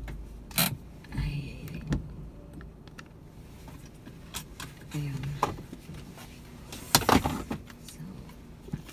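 Scattered clicks and knocks of handling inside a car just parked in a garage, with a low steady hum at first. The loudest cluster of knocks comes about seven seconds in.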